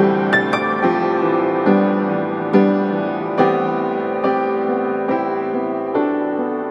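Background music: slow piano, a new chord struck about every second and left to ring.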